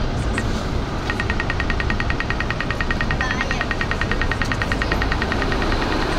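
Audible signal of a pedestrian crossing's push-button box: one slow wait tick, then about a second in it switches to rapid ticking, about ten sharp clicks a second, the go signal for pedestrians, which stops near the end. Steady traffic noise of a city street runs underneath.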